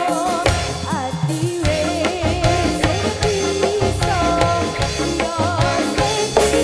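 A woman singing into a microphone with wavering, held notes over amplified live band music with drums.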